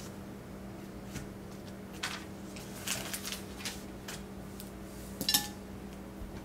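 Scattered light clicks and clinks of small hard objects being handled, the loudest a little after five seconds in, over a steady low hum.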